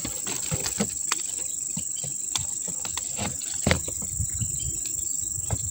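Pliers clamped on a young crystal guava branch and twisted around it to strip a ring of bark, giving scattered clicks and scrapes, the sharpest a little under four seconds in. Behind it, a steady high-pitched insect drone.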